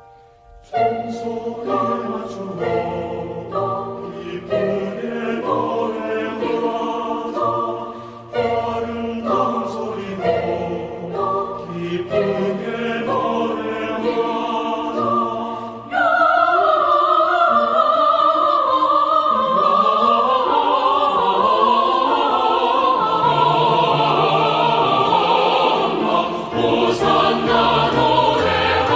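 Women's two-part choir singing with accompaniment. About 16 seconds in, the music becomes suddenly louder and fuller, with long held notes.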